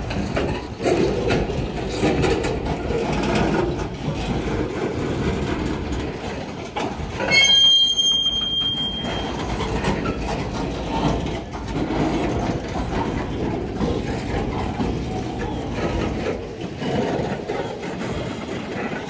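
Freight train of loaded centerbeam flatcars rolling past: a steady rumble of steel wheels on the rails with frequent clicks as the wheels pass over the joints. About seven seconds in, a loud high-pitched steel squeal lasts under two seconds.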